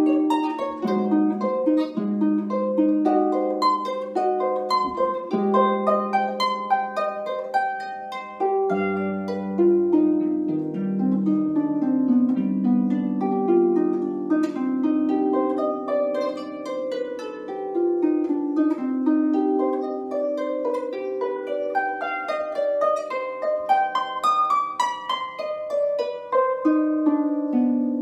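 Concert pedal harp played solo: a continuous flow of plucked notes and chords, ringing on, with deeper bass notes coming in about nine seconds in.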